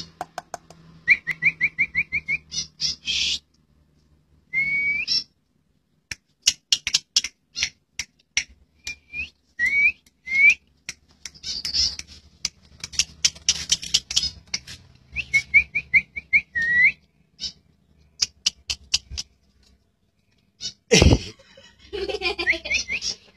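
Pet starling whistling and chattering: quick runs of short rising whistle notes, single upward-sweeping whistles, and bursts of sharp clicking calls in between. A loud thump comes near the end.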